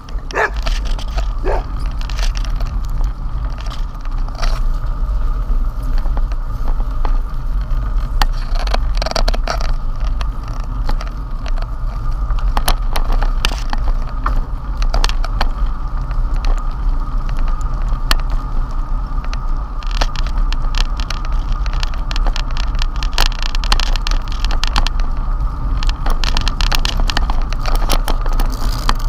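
Bicycle ridden over cracked asphalt, heard from a camera on the handlebars: a steady low rumble of wind and road noise on the microphone, with frequent clicks and rattles as the bike goes over bumps.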